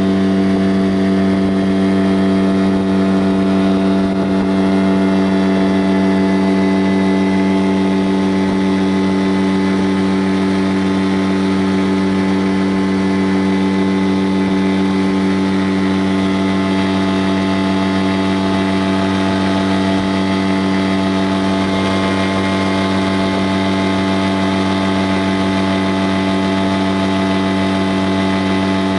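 Vehicle engine running at a steady speed: an even, unchanging drone.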